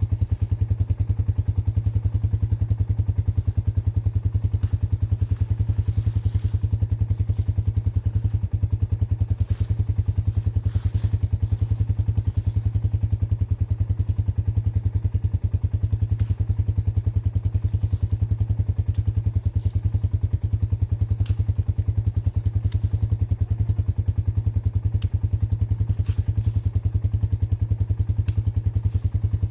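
Four-wheeler (ATV) engine idling steadily close by, an even unbroken pulse, with a few faint clicks over it.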